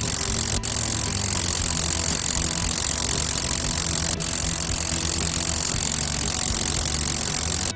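Idling car engine with a noisy air-conditioning compressor engaged: a steady engine hum under a constant high-pitched hiss. There are two brief dropouts, about half a second in and about four seconds in.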